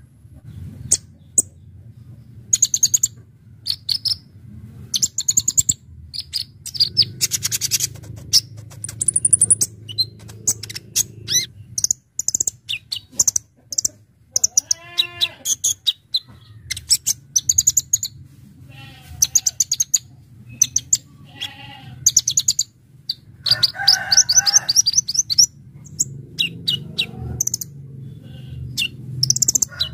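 A kolibri ninja (sunbird) singing in fast runs of sharp, very high chirps and trills, one burst after another with short gaps. A steady low hum runs underneath.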